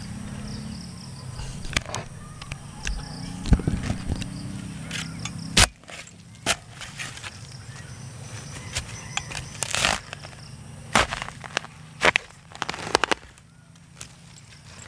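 Shovel digging into damp soil: several sharp chops and scrapes of the blade into the earth, a few seconds apart, with soil thrown off the blade. A low steady hum sits underneath in the first few seconds.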